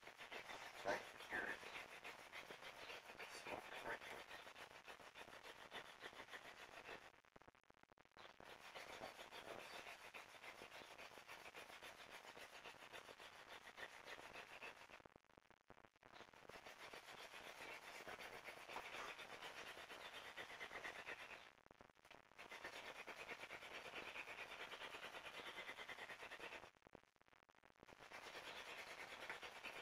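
Hand-drill friction fire: a wooden spindle spun between the palms grinding in the notch of a wooden hearth board, a faint, steady dry rubbing of wood on wood to build heat for an ember. It runs in long spells with four short breaks, one every six or seven seconds, as the hands go back up the spindle.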